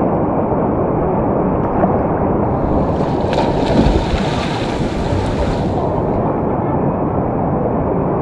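Wind roaring over the microphone of a motorcycle at speed (a Benelli TRK 502X), steady and loud, with a brighter hiss swelling for a few seconds in the middle.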